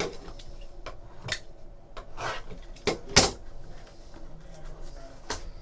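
A trading card pack being handled and opened by hand: scattered crinkles, taps and scrapes, with the loudest, sharp rustle about three seconds in.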